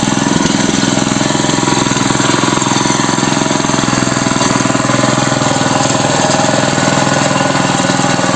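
Walk-behind tractor's small engine running steadily, with a rapid even putter, driving the machine along at the slower ground speed given by its newly changed belt pulley.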